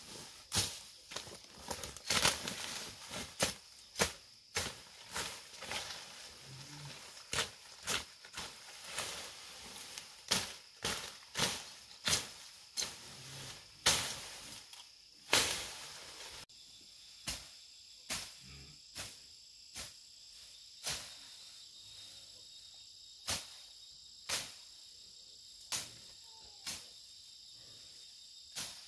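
A hand tool chopping through weeds and grass: sharp, irregular strikes about one or two a second, thinning to about one a second past the middle. Under them runs a steady high-pitched insect buzz.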